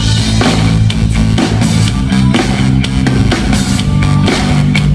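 Live rock band playing an instrumental passage: distorted electric guitar, bass and drum kit at a steady beat, with no singing.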